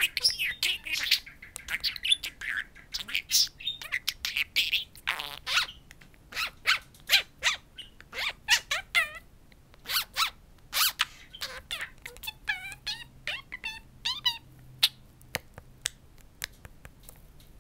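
Budgerigar chattering to its reflection in a mirror: a quick, uneven run of short high chirps and clicks, with a few short warbled glides between them.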